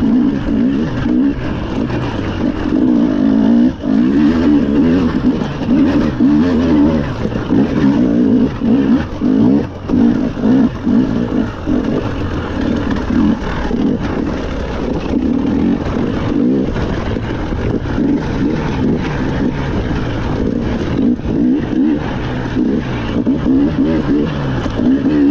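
Rally car engine running hard throughout, its revs rising and falling as it accelerates and backs off, with many short knocks and rattles.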